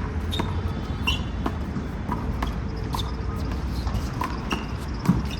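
A one-wall handball rally: the rubber ball smacked by hands and striking the wall, sharp slaps in an uneven rhythm a little under once a second, the loudest near the end.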